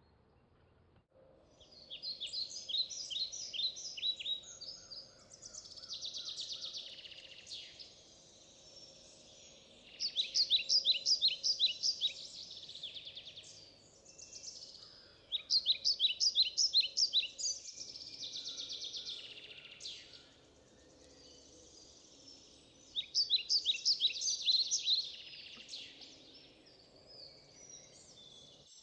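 A songbird singing: high-pitched bouts of rapid trilled notes, each lasting two to three seconds and repeated every few seconds, over a faint steady hum.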